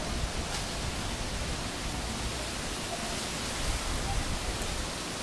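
Steady rushing outdoor noise with faint voices of people in the background.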